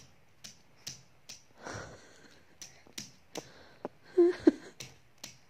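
A baby's palms patting against a poster-covered wall, one sharp slap about every half second, with a short breathy sound about two seconds in and a brief baby vocal sound a little after four seconds.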